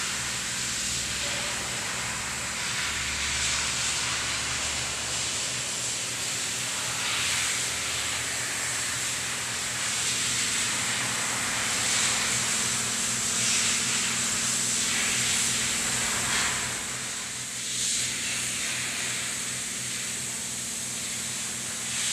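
Steady hiss with a low, even mechanical hum underneath and a few brief louder swells: workshop background noise.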